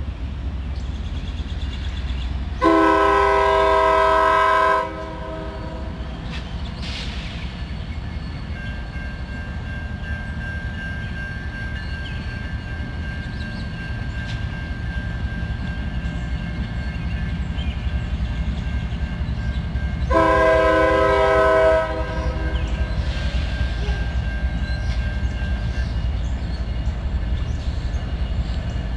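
Freight locomotive's multi-chime air horn sounding two blasts as the train approaches the crossing: one about two seconds long near the start and a shorter one some 17 seconds later, over a low steady rumble of the train. About a third of the way in, the grade-crossing warning bell starts ringing as the signals activate.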